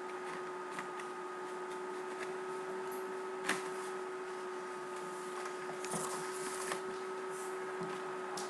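Steady electrical hum with a few fixed tones, with scattered faint clicks and small handling noises; the sharpest click comes about three and a half seconds in, and a short cluster of small noises follows around six seconds in.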